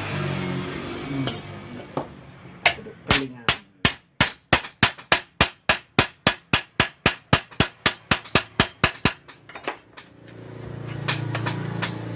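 Hammer striking a tool against the steel body of a Kawasaki Ninja 250 rear monoshock clamped in a vise: a fast, even run of sharp metal taps, about five a second, starting a few seconds in and stopping after about six seconds. The blows tighten the shock's assembly so it will not be loose.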